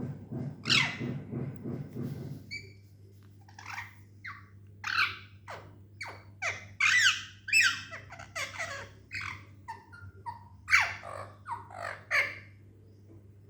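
A small pet animal giving a string of short, high-pitched squeaky calls and chirps, some gliding up or down in pitch, over a steady low hum.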